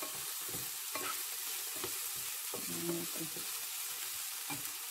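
Diced potato and onion sizzling in a nonstick frying pan, with a wooden spatula stirring and scraping against the pan in repeated strokes over a steady hiss.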